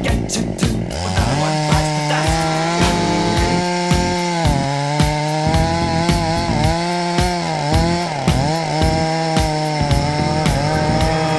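Chainsaw running under load as it cuts through the trunk of a three-foot fir. The engine pitch sags and recovers every second or two as the chain bites into the wood.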